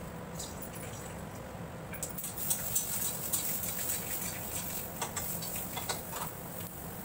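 A metal spatula stirring and scraping in a kadhai of frying food, a quick run of clicks and scrapes starting about two seconds in and stopping about a second before the end.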